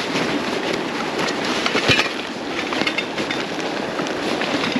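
Water of a small, steep stream rushing and splashing over rocks, a steady noisy wash, with a brief knock about two seconds in.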